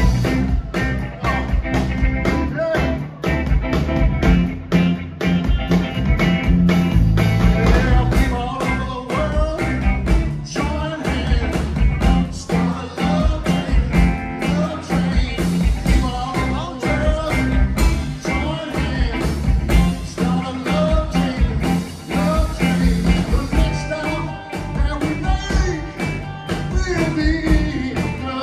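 Live rock trio playing: electric guitar, electric bass and a drum kit keeping a steady beat.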